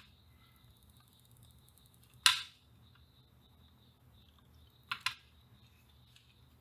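Sharp clicks from hand work while desoldering with copper solder wick and a soldering iron on a small circuit board: one loud click about two seconds in and a quick double click about five seconds in, over a faint steady high-pitched tone.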